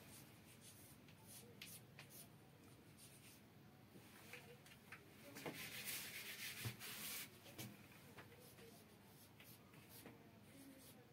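Chalk writing on a blackboard: faint taps and scratches as the chalk goes stroke by stroke, with a longer, louder stretch of scratching about six seconds in.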